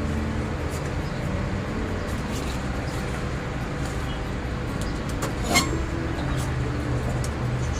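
Steady low rumble of road traffic, with small scattered snaps of taro leaf stalks being cut and one sharper click about five and a half seconds in.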